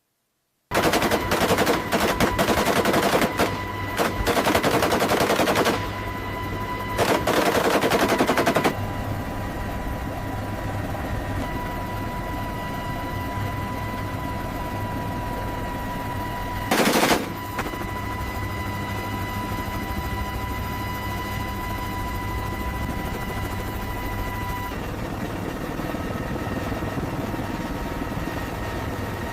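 Gatling gun firing in rapid bursts: three long bursts in the first nine seconds and a short one in the middle, over a steady engine drone with a high whine.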